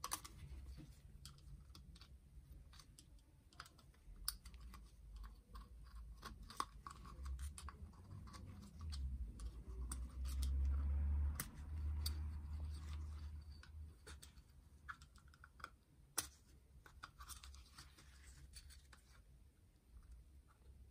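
Scattered light clicks and scratches of a piston ring being worked into its groove on an aluminium piston by gloved hands. A low rumble runs for several seconds in the middle.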